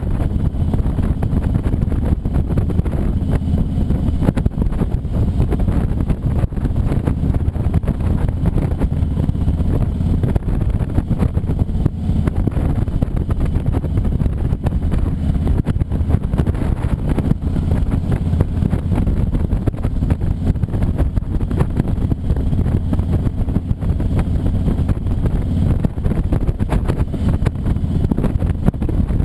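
Harley-Davidson motorcycle engine running steadily under way, with wind rushing over the microphone.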